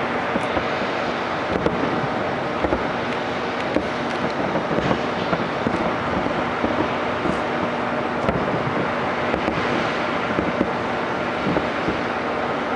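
Fireworks going off: a dense, continuous run of many small bangs and crackles over a steady rushing din.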